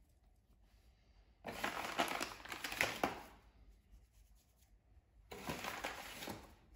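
Two bursts of dry rustling and crinkling, each a second or more long, from hands working floured sourdough dough and dusting flour onto the counter during shaping.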